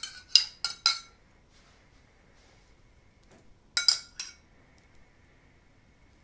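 A metal teaspoon clinking against a small drinking glass as cherry juice is scooped out of it: a quick run of four clinks at the start, then two or three more about four seconds in.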